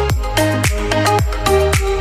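Upbeat electronic dance music with a steady kick-drum beat, about two beats a second, and synth chords.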